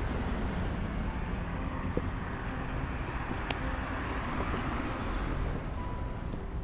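Steady road-traffic noise from passing cars, with wind buffeting the microphone.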